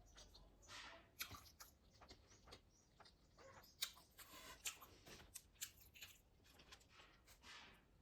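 Faint chewing and mouth sounds of someone eating: irregular small clicks and brief wet smacks.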